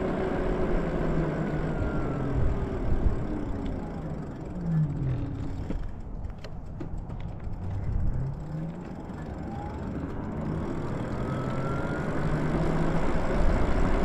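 Lyric Graffiti electric bike's motor whining under low wind and tyre rumble while it is ridden. The whine falls in pitch as the bike slows around the middle, then rises again as it speeds back up.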